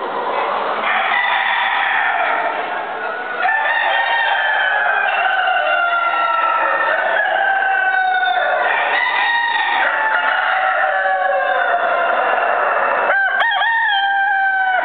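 Castellana Negra roosters crowing, with several long crows overlapping one after another. A louder, nearer crow breaks in near the end.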